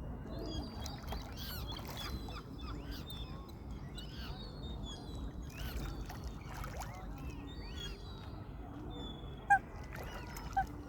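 Eurasian coots calling: two short, sharp calls near the end, the first the louder, over a steady low rumble and faint high chirping of small birds.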